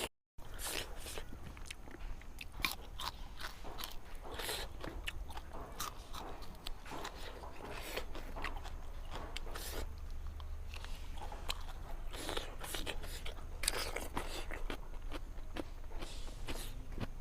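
Close-miked chewing, mouth smacking and small crunches from eating fish curry, in an irregular run of wet clicks. The audio cuts out completely for a moment just after the start.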